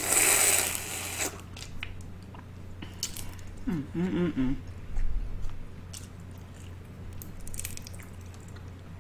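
Close-miked eating: a person biting, chewing and squishing crawfish-boil food with wet clicks and smacks. It opens with a loud breathy noise about a second long, and a short hummed sound comes about four seconds in.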